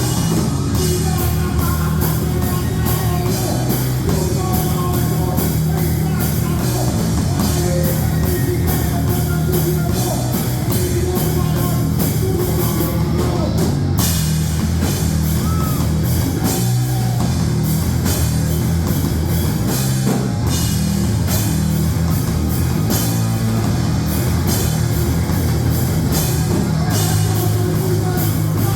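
Loud heavy rock music from a band: distorted guitar and bass chords under a drum kit beating a fast, steady rhythm.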